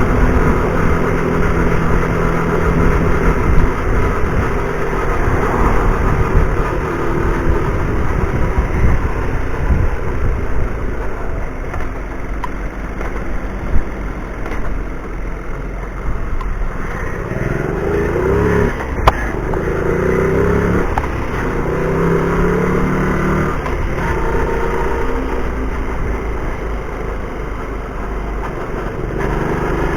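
Car driving, heard from inside the cabin through a dashcam's microphone: steady engine and road noise. A little past halfway the engine's pitch rises and falls as it speeds up and shifts, with one sharp click in the middle of it.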